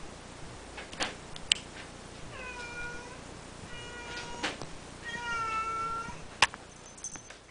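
British Shorthair kitten meowing several times in short calls, the longest about five seconds in. Sharp knocks fall between the calls, the loudest about six and a half seconds in.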